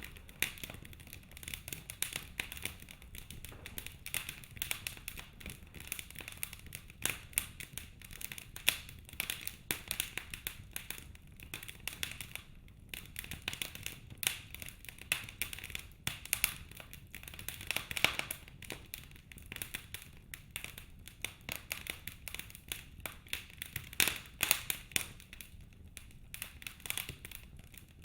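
Wood fire crackling in a fireplace: a dense, irregular run of small snaps, with a few louder pops.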